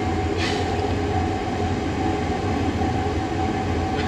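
Diesel-fired central-heating boiler burner running just after lighting: a steady low rumble with a thin steady hum above it, and a short hiss about half a second in.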